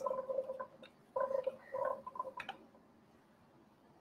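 Diced sweet potatoes scraped out of a glass bowl into a stainless steel sauté pan, in three short scraping strokes with a couple of sharp clicks of bowl and utensil against the pan.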